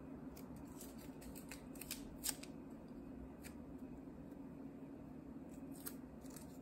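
Faint handling sounds of a self-adhesive rhinestone strip being worked onto a glass vase: scattered light crinkles and clicks, with one sharper tick a little over two seconds in.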